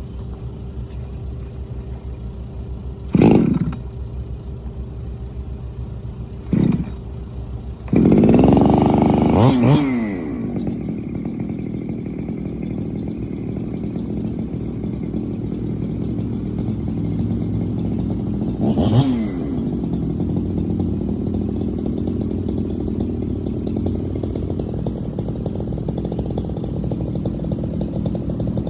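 Engine machinery running steadily. It has short loud bursts about three and six and a half seconds in, a longer surge that falls in pitch around eight to ten seconds, and another smaller surge about nineteen seconds in.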